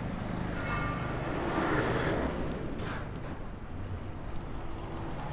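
Street traffic on a wet road heard from a moving bicycle, with wind on the microphone; a vehicle's noise swells and passes about two seconds in.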